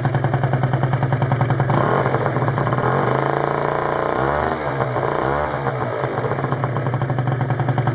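Derbi GP1 50 cc two-stroke scooter with a Leovince Handmade TT exhaust, idling with a steady pulse, then revved. The pitch rises and holds for a couple of seconds, two quick blips of the throttle follow, and it settles back to idle about six seconds in.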